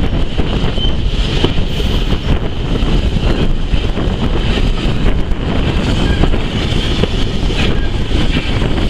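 Wind buffeting the microphone from the open window of a moving train carriage, over the steady rumble of the carriage running along the track. A faint high steady tone sits above the rumble.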